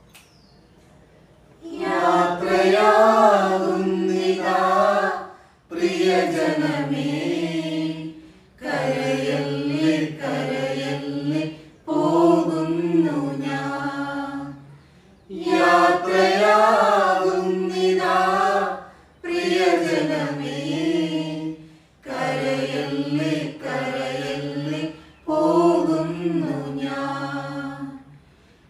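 A small group of women and men singing a Malayalam hymn for the departed, unaccompanied, in phrases of a few seconds with short breath pauses between them. The singing begins about two seconds in.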